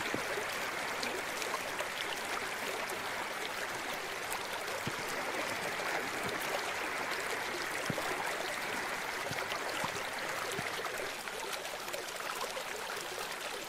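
Muddy storm runoff from heavy rain rushing steadily across a dirt track in a shallow sheet.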